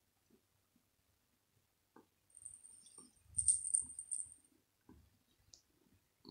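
A small bell inside a toy ball jingling with a thin, high ring for about two seconds in the middle as the ball is batted about, over soft knocks and rustling of paws on plush fabric.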